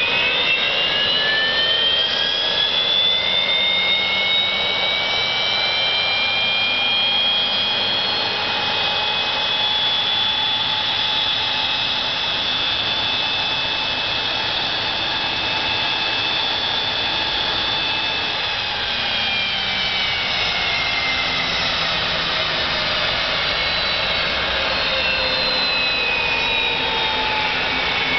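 Williams FJ44-3A turbofan turned over by its electric starter-generator without being lit, for a water wash of the compressor. Its whine climbs over the first few seconds, holds steady, then falls away from about two-thirds through as it spins down, over the hiss of water spray.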